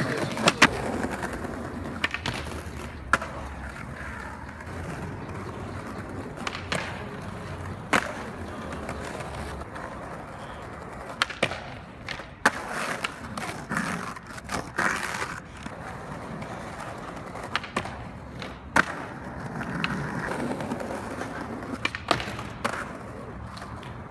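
Skateboard wheels rolling over stone plaza paving, with sharp pops and landing clacks scattered throughout. About halfway through, the board grinds along the ledge.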